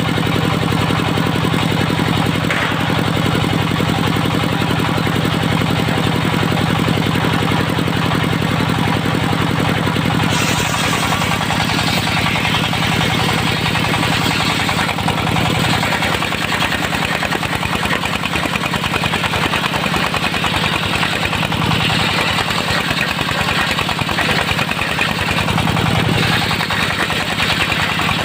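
Engine of a portable circular-saw sawmill running steadily. About ten seconds in, a brighter, harsher noise joins and the engine note changes, and both hold to the end.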